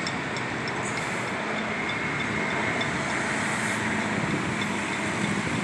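Steady city traffic noise, an even background rush with no single event standing out.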